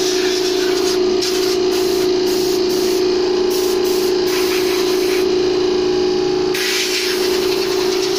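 Compressed air from an air-compressor blow nozzle hissing in uneven blasts as it blows dust out of a computer case, over a steady hum. The hiss is strongest in the last second or so.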